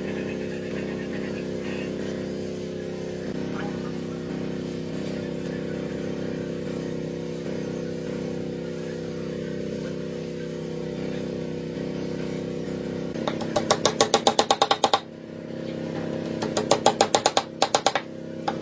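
A machine runs with a steady hum, then two runs of rapid, regular strikes at about eight a second come in near the end, louder than the hum.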